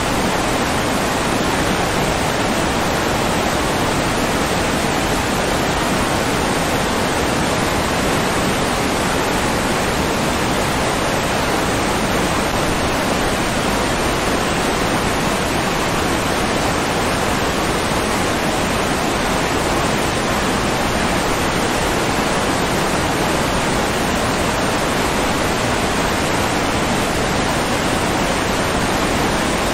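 Steady rushing water, an even, unbroken hiss of the kind a waterfall or fast stream makes, with no change in level and no animal calls.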